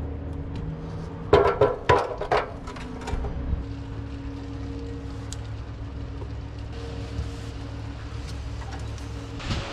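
Background music with steady held tones that change every few seconds, and a few sharp clanks about a second and a half in.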